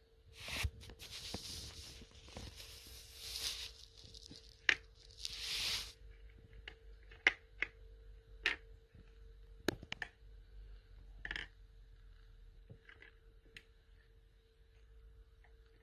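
Oriental Shorthair cat shifting and scratching inside a clear plastic bowl bed: bursts of rustling and scraping against the plastic over the first six seconds, then scattered sharp clicks, over a faint steady hum.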